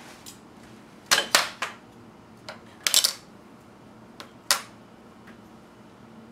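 Hardware being set down on a wooden tabletop beside machined aluminium parts: a speed controller in a perforated metal case and a laser-cut acrylic panel with a potentiometer. The result is a string of sharp knocks and clinks in small groups, the loudest about a second in, around three seconds and near four and a half seconds.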